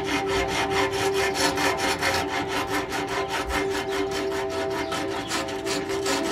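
Round hand rasp filing wood in fast back-and-forth strokes, about five or six a second, with a steady held musical chord beneath.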